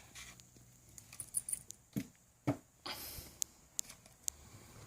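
Faint rustling and small taps of paper stickers being handled, peeled off a sheet and pressed on, with a short rustle about three seconds in.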